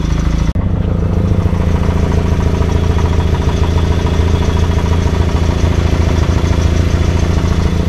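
1952 Willys 4x4 truck engine idling steadily, with a rattle from underneath: the exhaust pipe, loose from a broken exhaust support bracket, rattling.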